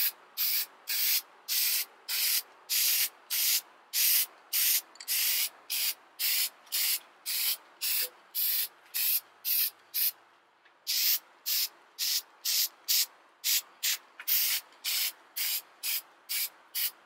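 Aerosol can of Rust-Oleum high-heat paint spraying in short hissing bursts, about three a second. There is a pause of about a second partway through as a coat goes onto bare steel exhaust headers.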